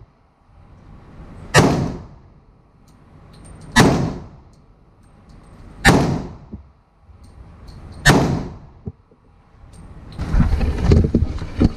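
Four pistol-calibre gunshots from a Glock 31 (.357 SIG) fired from a CAA Micro Conversion Kit chassis, about two seconds apart, each echoing in the indoor range.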